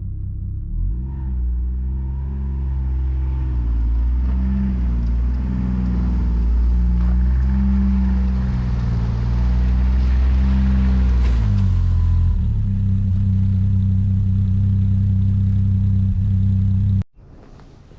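Snowmobile engine, the Ski-Doo Renegade Enduro 900 ACE's three-cylinder four-stroke, running under way, its pitch rising and falling as it speeds up and eases off, then holding steady before cutting off suddenly near the end.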